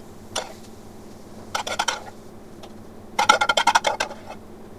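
Curry being served from a stainless steel pan into a ceramic bowl: metal utensil clinking and scraping against the pan. A single clink comes about half a second in, a short run near two seconds, and a longer rapid run of ringing clinks around three to four seconds.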